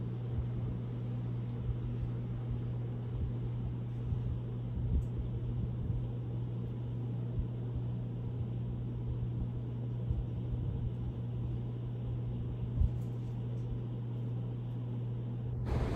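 Steady low hum and hiss from a home security camera's night recording of an empty room, with a few faint low thumps and one sharper knock about thirteen seconds in.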